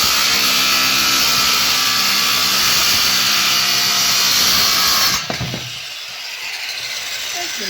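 Electric jigsaw cutting plywood, running steadily and then stopping suddenly about five seconds in.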